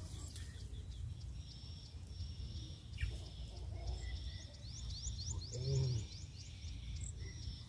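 Outdoor birdsong over a low rumble of wind on the microphone: a steady high note runs through, with a quick trill of short rising chirps a little past the middle. A brief low call or grunt near the same moment is the loudest sound.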